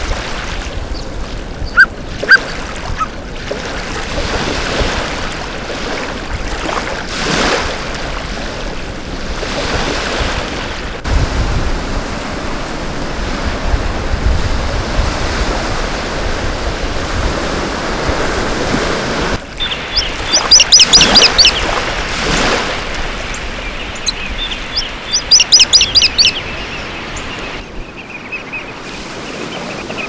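Small ocean waves washing onto a beach, with wind, under two loud bursts of rapid, high, repeated bird calls about two-thirds of the way through. Two sharp clicks sound near the start.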